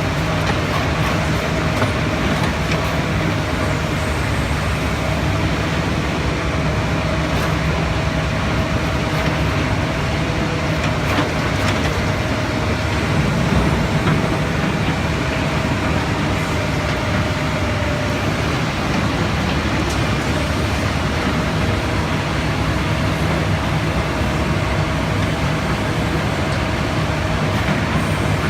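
Komatsu PC400 hydraulic excavator running steadily: a low diesel engine rumble with a steady hum over it.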